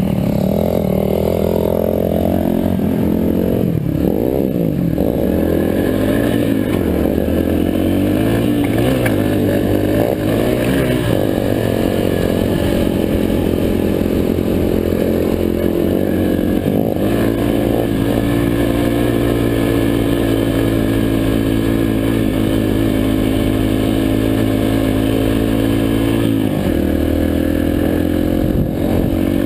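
Yamaha four-stroke dirt bike engine running under way, its pitch rising and falling with the throttle through the first half, then held steady for about ten seconds before dropping near the end.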